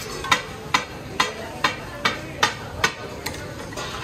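Katakat: a pair of steel spatulas chopping and clanging on a flat iron tawa, a steady beat of about two sharp ringing strikes a second. The strikes die away a little after three seconds in.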